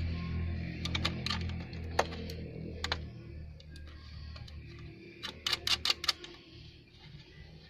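Sharp clicks and taps of a metal number plate and its bracket being handled while a bolt is fitted by hand: a few single clicks in the first three seconds, then a quick cluster of them about five to six seconds in, over a low steady hum.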